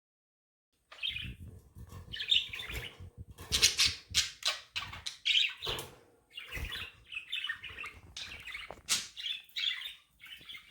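Pet budgerigars chirping and chattering in a quick, busy run of short chirps and trills, starting about a second in, mixed with scratchy noises.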